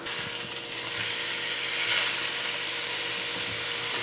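Seasoned lake trout fillets sizzling as they fry in an enamelled cast-iron skillet, a steady frying hiss.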